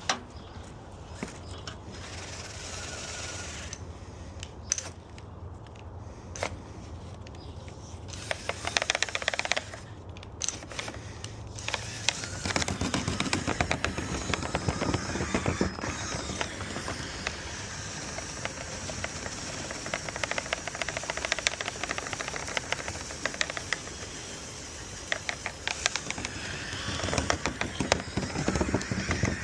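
Wire brush scraping and rattling inside a dryer vent duct, scrubbing out caked-on bird nest debris. It is a run of rapid, scratchy clicks, scattered at first over a low steady hum, then dense and continuous from about twelve seconds in.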